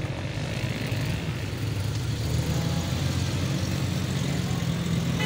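Car and minivan engines running with a steady low hum as the vehicles drive slowly up a dirt track.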